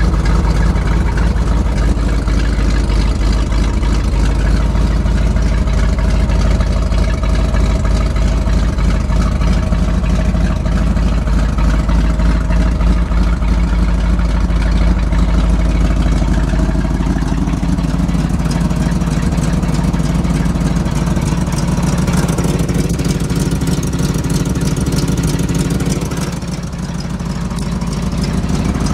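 1987 Chevrolet C70 dump truck's gasoline V8 engine idling steadily, dipping in loudness briefly near the end.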